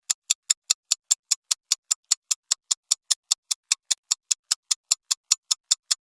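Countdown timer ticking sound effect: short, crisp, high ticks at an even pace of about five a second, marking the time to answer a quiz question.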